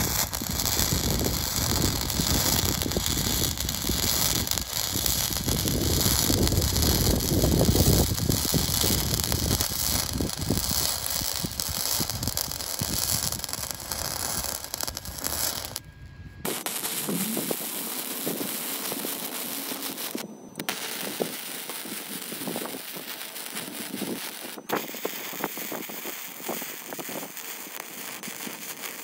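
Electric arc welding: steel brackets being welded onto a steel tube frame, the arc running in long continuous stretches broken by a short stop about halfway through and another a few seconds later.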